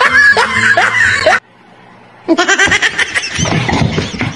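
A person laughing in rapid, repeated bursts, starting about two seconds in after an abrupt cut and a brief quiet gap.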